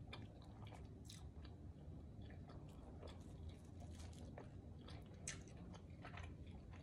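Close-miked chewing and biting of pizza, faint, with a scatter of small crunchy mouth clicks.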